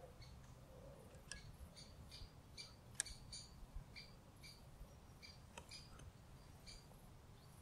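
Faint, quiet ambience with short high chirps repeating about two or three times a second, like a small bird calling, and a few sharp clicks, the loudest about three seconds in.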